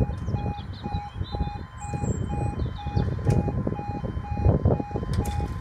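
UK level crossing warning alarm, a steady pulsing beep at about three beeps a second, sounding while the red lights flash and the barriers lower. A low irregular rumble runs beneath it.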